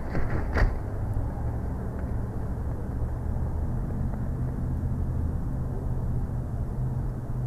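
Bald eagle flying in and landing on a stick nest: a few quick wing flaps and a thump in the first second, over a steady low rumble.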